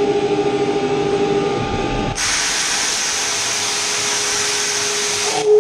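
CNC vertical milling machine running a high-feed milling pass with a 32 mm cutter at 1790 rpm: a steady whine, then about two seconds in a loud even hiss starts suddenly and cuts off abruptly near the end.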